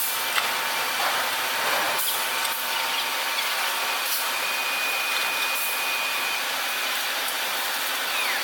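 Industrial tire-recycling machinery running: a steady, even noise with a few faint clicks and a faint high whistle in the middle.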